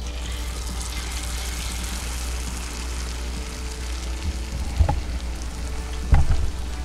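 Battered seitan pieces sizzling in deep-frying oil at about 350 °F, a steady hiss that starts as they go in. Two short knocks come about five and six seconds in.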